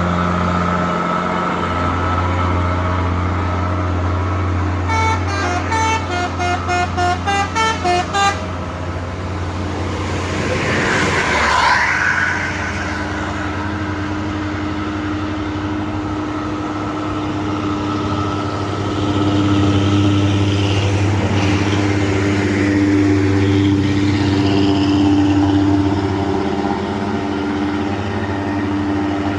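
Intercity bus diesel engines labouring up a hill. About five seconds in, a multi-tone telolet horn plays a quick tune of short stepped notes for about three seconds. A bus passes close around twelve seconds in with a rush of noise, and another heavy engine builds again in the second half.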